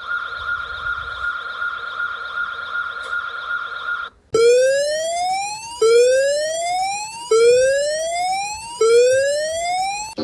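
Electronic emergency-alert alarm tones: a steady high tone with a slight warble for about four seconds, then, after a brief break, four rising siren sweeps, each about a second and a half long.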